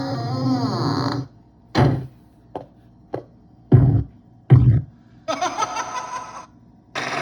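Sound effects played back one after another on a Videonics sound effects mixer: a sustained effect that cuts off about a second in, then five short hits, then a longer noisy effect and another starting near the end.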